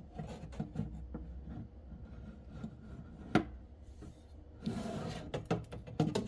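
Handling noise of chicken strips being laid into an air fryer basket: scattered light clicks and knocks, one sharp click about three seconds in, and a scraping rub near five seconds followed by a quick run of clicks.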